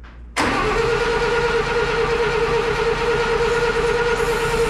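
Satoh S-550G tractor's four-cylinder gas engine cranking over on the starter without catching, a loud steady starter whine that starts about half a second in. It is getting fuel but, the owner suspects, no spark, so it never fires.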